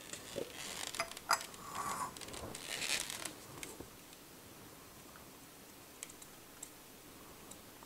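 A glass graduated cylinder and a foam-cup calorimeter being handled. Sodium hydroxide solution is poured into the cup, the plastic lid is put back on and the cylinder is set down, giving a run of rustles, light scrapes and clicks over about three seconds. Then quiet room tone with a couple of faint ticks.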